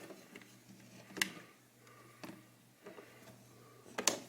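A few sharp clicks of a metal hook tool prying at the plastic snap latches of a computer mouse's shell, the loudest one near the end.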